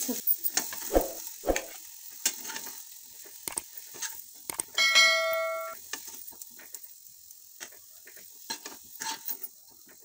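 A spoon scraping and knocking against a non-stick pan as fried potatoes are scooped out onto a plate, over a faint sizzle from the hot pan that fades out near the end. About five seconds in, one clear ringing clink lasts about a second.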